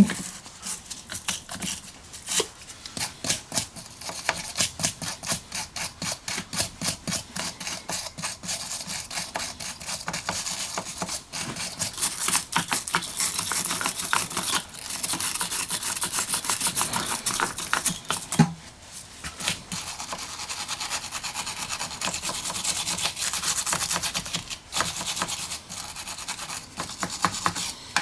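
Metal wire brush scrubbing a corroded car battery in rapid back-and-forth strokes, the bristles rasping on the battery. It breaks off briefly with a single knock about two-thirds of the way through, then the scrubbing resumes.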